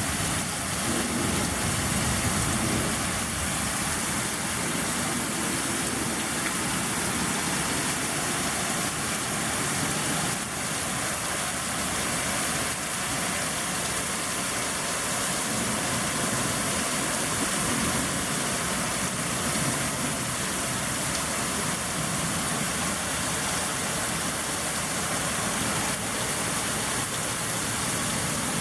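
Heavy rain falling steadily during a strong storm, a constant even hiss with no break.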